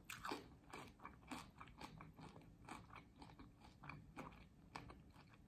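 Faint, close-up crunching and chewing of crispy fried corn tortilla, with irregular crunches several times a second.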